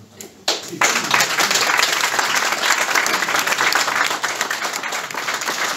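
Audience clapping hands in applause, starting about half a second in and holding steady as many overlapping claps.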